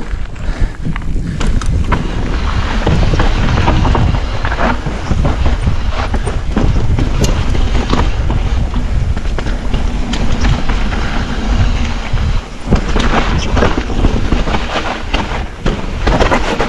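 Enduro mountain bike ridden fast down a rough trail: wind buffets the microphone, the tyres roll over dirt and stones, and the bike clatters and knocks over the bumps.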